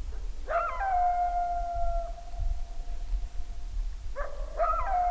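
Coyote howls: a long howl that drops in pitch and then holds a steady note for a few seconds, followed about four seconds in by a second howl of the same shape.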